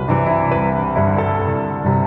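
Background music: a slow keyboard piece of sustained chords that change every second or so.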